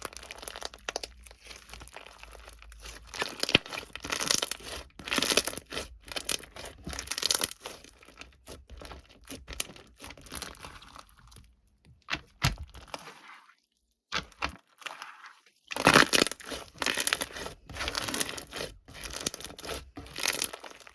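Irregular crinkling and tearing of thin wrapping material being handled. The handling stops for about two seconds past the middle, then starts again at its loudest.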